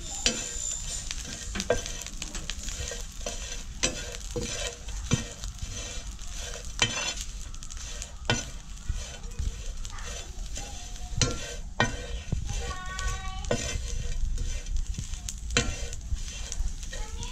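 Metal ladle scraping and knocking against a metal pan as whole crickets are stirred while they roast, over a steady sizzle from the hot pan. The knocks and scrapes come irregularly, every second or few.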